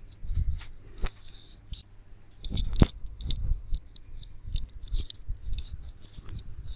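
Scattered small clicks and rustles close to the microphone, with short low rumbles between them; the sharpest click comes a little under three seconds in.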